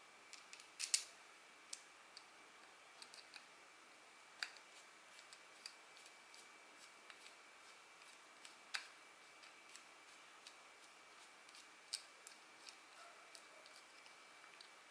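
Scattered light clicks and taps of small fishing-reel parts and tools being handled, the loudest a double click about a second in. A faint steady high tone hums underneath.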